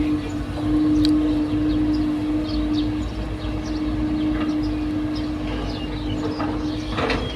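A machine running: a steady drone holding one pitch over a low rumble, with short high chirps scattered throughout and a brief rattle near the end.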